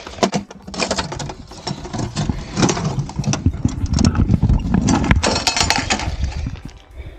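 A metal ammo-can summit register being handled among granite rocks: irregular knocks and scraping of metal on stone, then plastic crinkling about five seconds in as the register notebook in its plastic bag is pulled out. A low rumble runs underneath.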